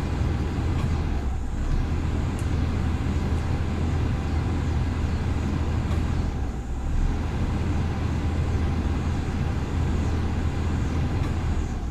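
A 2000 Nissan truck's engine idling at about 1000 rpm, heard from inside the cab, its idle wavering slightly up and down. This is the erratic idle of an idle control system fault (P0505), which the owner puts down to an idle air control valve that needs cleaning and adjusting.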